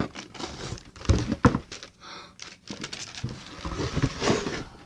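Handling noise: rustling and knocking as objects are moved about by hand, with two dull thumps about a second and a half in.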